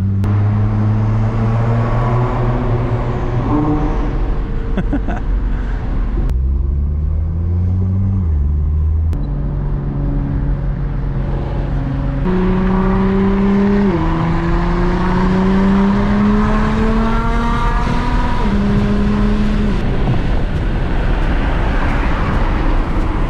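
Nissan GT-R R35's twin-turbo V6 engine heard from inside the cabin while driving. Its note holds steady for stretches, then climbs and drops back several times as the car accelerates and changes gear.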